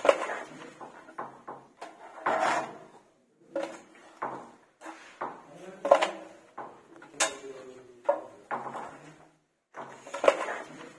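Metal putty tools, a steel putty blade and an aluminium straight edge, scraping wet wall putty across a wall in repeated strokes, about one every second or two, with a couple of sharp clicks near the middle.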